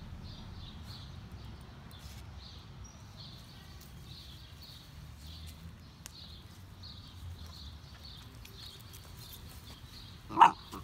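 Puppies wrestling on grass, with a run of high chirps repeating about three times a second in the background. Near the end comes a single short, loud yip from one of the puppies, a beagle and a basset hound.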